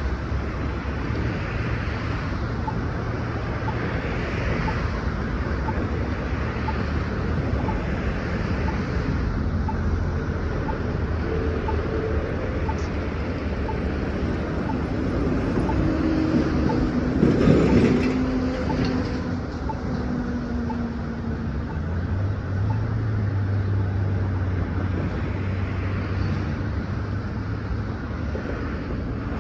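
New Flyer XDE40 diesel-electric hybrid bus standing with its drive running: a steady low hum, with a faint regular tick a little more than once a second. The sound swells louder for a few seconds about seventeen seconds in.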